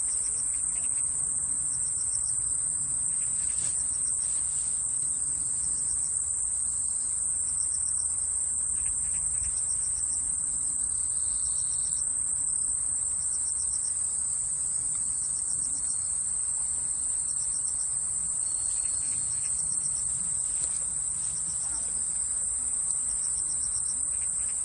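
Insects calling from the grass: a steady high-pitched shrill drone with a shorter pulsed chirp repeating every second or two, over a faint low rumble.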